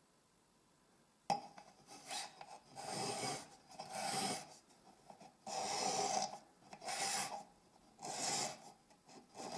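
Thin steel blade scraping varnish off a wooden glazing bead, in repeated strokes about a second apart, after a sharp click just over a second in.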